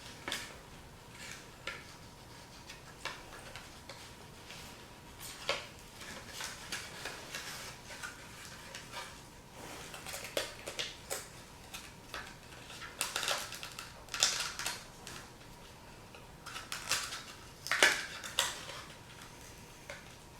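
Hands handling small fishing tackle and its plastic packaging: irregular clicks, light rattles and rustles of small hard items. They are sparse at first and come thicker in the second half.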